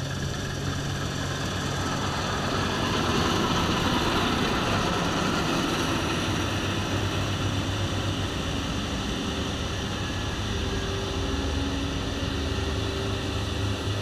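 Combine harvester passing over at ground level while cutting grain: a steady hum of its engine and threshing machinery, swelling a few seconds in and easing off slightly as it moves on.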